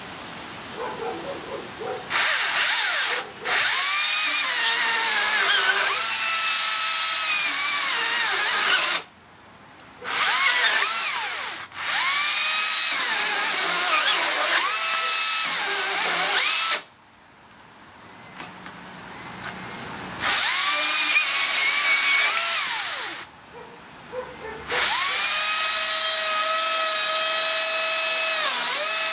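Makita 40V XGT brushless top-handle chainsaw cutting a timber block under heavy load in a stall test. The motor whine sags in pitch as it is forced into the wood, cuts out several times and spins back up.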